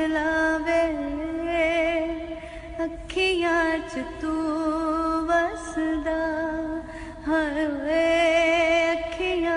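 Soundtrack song: a woman singing long held notes with a wavering pitch and slides between them, over a soft accompaniment.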